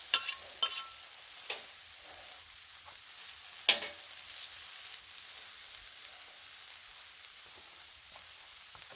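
Chicken frying on a Blackstone flat-top griddle, a steady sizzle. A utensil clicks against the griddle's steel top a few times in the first second and once more, louder, near the four-second mark.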